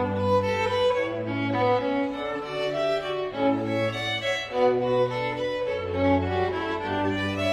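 Background music played on bowed strings: violin melody over held low cello or bass notes, changing pitch every second or so.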